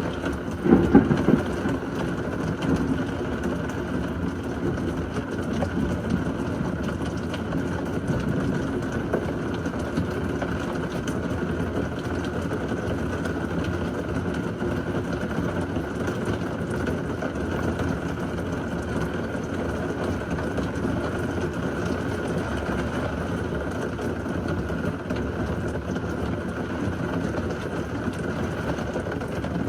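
Heavy thunderstorm rain falling steadily, with a loud clap of thunder about a second in whose low rumble trails off over the next several seconds.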